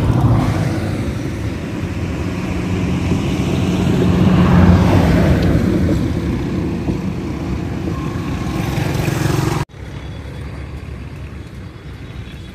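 Motorcycle engine running with wind and road noise while riding. It swells to its loudest about halfway through, then drops abruptly to quieter road noise near the end.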